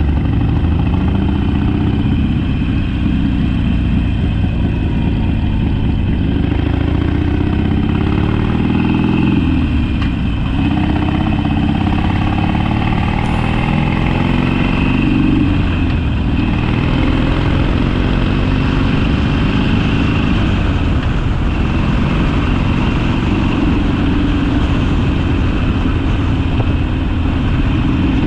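Harley-Davidson Sportster's V-twin engine under way on the road. Its pitch climbs and falls back several times, with clear drops about ten and sixteen seconds in, as the bike accelerates and eases off.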